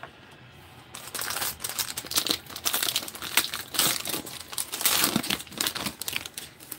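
Plastic wrapper of a football trading-card pack crinkling and crackling as it is torn open and crumpled, starting about a second in.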